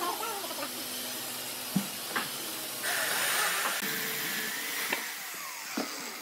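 Corded electric chainsaw cutting into a tree log, loudest for about a second midway, over a steady hiss, with a few sharp knocks.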